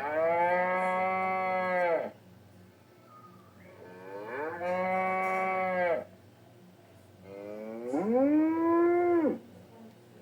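Three long, moo-like bovine calls about two seconds each, with short pauses between them; the wildebeest call effects for an animated character. The last call starts with a sharper rise in pitch.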